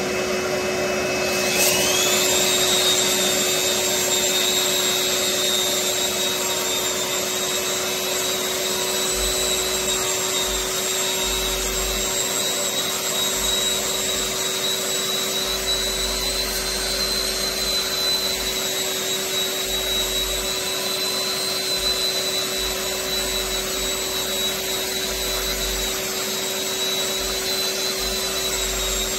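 Electric long-handled drywall sander running with its disc against a textured acoustic ceiling. Its whine climbs in the first couple of seconds as the motor spins up, then holds a steady hum for the rest of the time.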